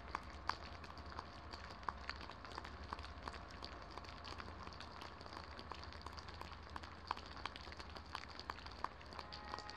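Rain falling, a steady patter with many sharp, irregular drop ticks scattered through it.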